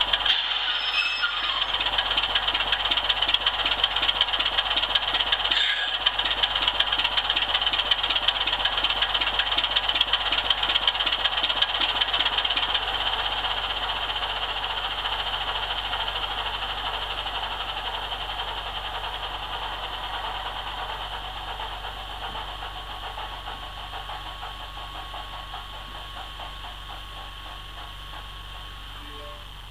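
OO-gauge model train running on the layout: a small electric motor's whirr with a fast run of mechanical clicking from the wheels and drive. It holds steady at first, then fades gradually through the second half.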